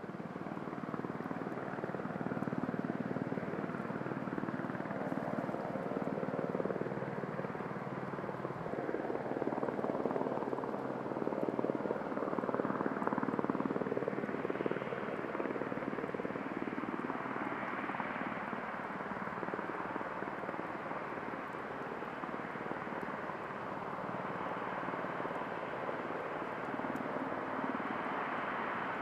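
Jet engines of a Boeing 737-800 airliner (CFM56 turbofans) running at low power as it rolls and taxis after landing: a steady rushing noise that swells slightly about halfway through, then eases.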